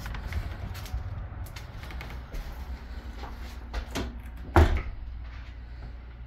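Aluminium-framed glass entrance door being opened and let swing shut, with scattered clicks and knocks over a low rumble and one loud thump about four and a half seconds in as the door closes.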